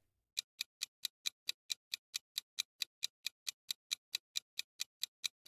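Ticking-clock sound effect of a quiz countdown timer: short, sharp, evenly spaced ticks, about four and a half a second, marking the time left to answer.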